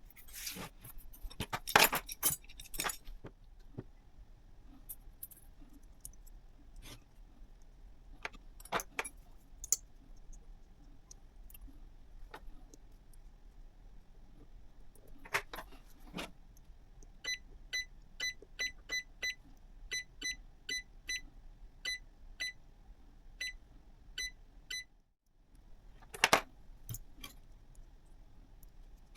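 Small hard parts clicking and rattling as they are handled, loudest at the start. Later comes a run of short, evenly spaced electronic beeps, about two a second for some seven seconds, and a sharp click near the end.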